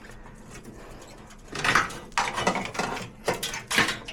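Wiring being handled and pulled free: a run of short rustling and scraping sounds, starting about one and a half seconds in, with several sharper bursts.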